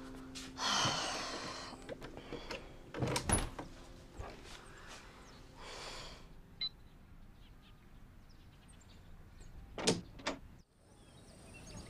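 A wooden door being moved: brief sliding and rustling sounds, a couple of knocks about three seconds in, and two sharp knocks near ten seconds, then a sudden cut to faint steady hiss.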